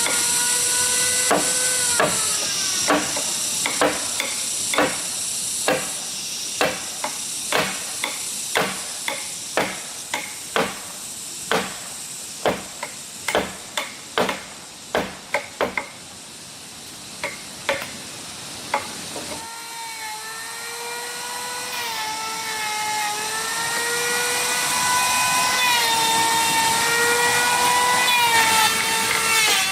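Hammer blows on wood, a sharp strike about once a second that thins out and stops about two-thirds of the way in. Then a power tool's motor starts up and runs with a steady whine.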